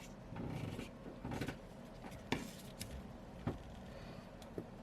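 Faint handling noises of phone batteries being moved about: soft rubbing, then a few light taps.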